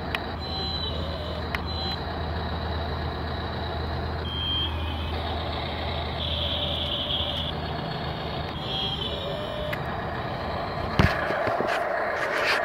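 Radio-controlled toy construction vehicles running: a steady low engine-like hum with short high electronic beeps sounding on and off. About eleven seconds in there is a sharp knock, followed by a louder, noisier whir as the RC excavator works close by.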